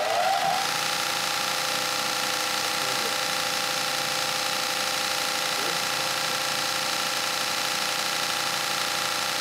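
Lagler Hummel 8-inch belt floor sander started up for a test run of the belt's tracking. Its motor and belt finish winding up to speed in the first half second, then run steadily with a constant whine over a hiss.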